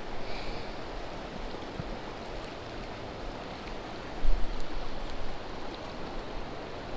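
Steady hiss of wind and water, with a louder low rumble of wind buffeting the microphone about four seconds in.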